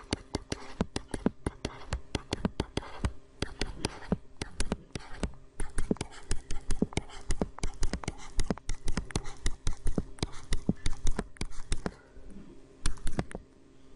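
Stylus tapping and scratching on a tablet's writing surface while numbers and plus signs are handwritten: a rapid, irregular run of sharp clicks.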